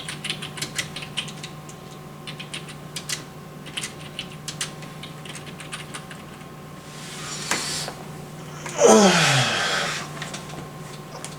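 Typing on a computer keyboard: irregular quick key clicks for about the first seven seconds. Near the end comes a loud, sudden sound whose pitch falls steeply over about a second.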